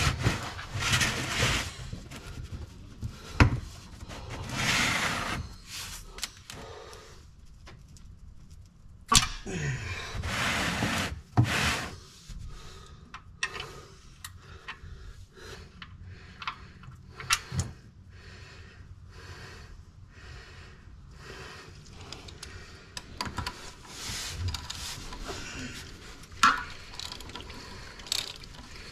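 Hand-tool work on a Jeep Wrangler's oil pan drain plug: a wrench scraping and rubbing against metal, with several sharp metal clicks and knocks spread through, and a few longer bursts of noise.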